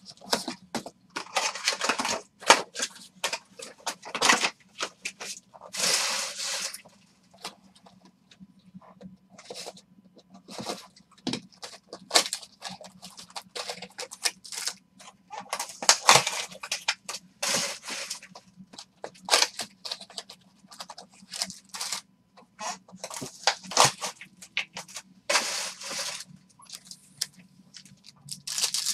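2020 Bowman Chrome trading-card packs being torn open, in a string of short, irregular tearing and crinkling noises as wrappers are ripped and cards handled. A faint steady low hum runs underneath.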